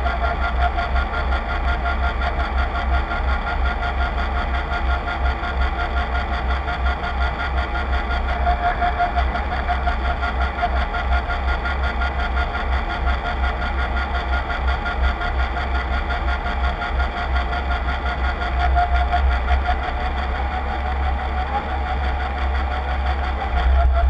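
Drive machinery of a radio-controlled model Voith Schneider tug running steadily under way, heard close through the deck: a constant low hum with a steady mechanical whine on top.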